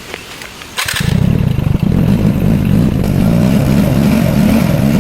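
SYM EZ 110 motorbike's single-cylinder engine starting about a second in, then running steadily and loud.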